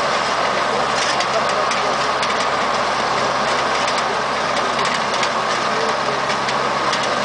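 Tractor engine running steadily under load while its PTO-driven Breviglieri MekFarmer 120 power harrow churns through dry, cloddy soil, with a constant mechanical din and occasional faint clatter.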